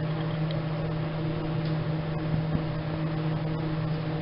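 Assay furnace room machinery running with a steady hum: a constant low drone holding one pitch over an even hiss, with a few faint clicks.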